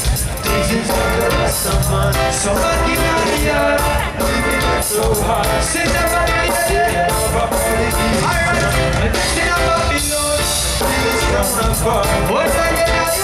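Live reggae band playing: a singer's vocals over drum kit, bass, electric guitar and keyboards, with a steady beat.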